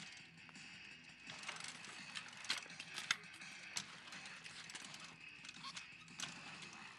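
BMX bike on a concrete bowl: tyres rolling and the rear hub's freewheel ticking as it coasts, with a few sharp knocks from hops and landings, the loudest about three seconds in.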